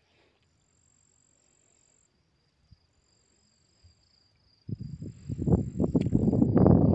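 Faint, steady high-pitched chirring of crickets over near silence. About two-thirds of the way in, a loud, uneven low rumble on the microphone takes over.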